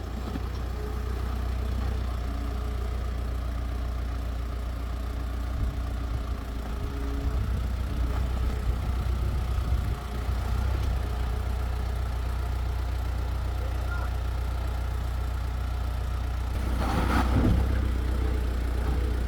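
Vehicle engine running steadily with a low rumble, with a brief louder burst of noise about seventeen seconds in.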